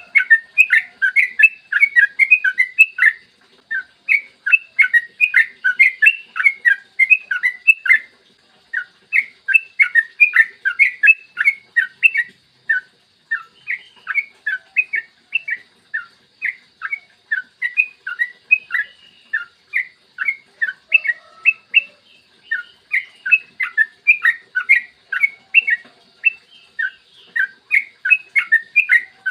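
Yellow-vented bulbul (trucukan) singing long runs of rapid, bubbly chirping notes, several a second, broken by short pauses.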